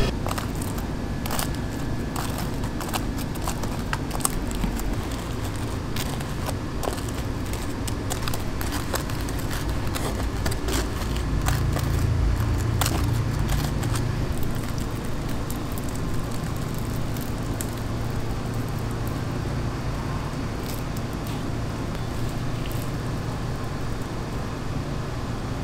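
Steady low rumble of street ambience with traffic, with scattered light clicks and crackles, mostly in the first half.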